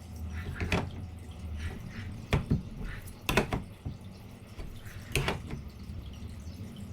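A few sharp knocks and taps, as a straightedge and tools are handled on a plastic cutting board, over a steady low hum. Two pairs of knocks fall in the middle, and one more comes near the end.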